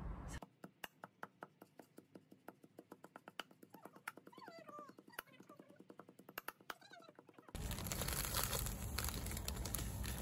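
A stone knocking on balsam petals and leaves in an aluminium bowl: a run of regular sharp knocks, several a second, with a brief wavering call in the background about four seconds in. About three-quarters of the way through it turns into louder, denser crushing and grinding as the leaves are pounded to a paste.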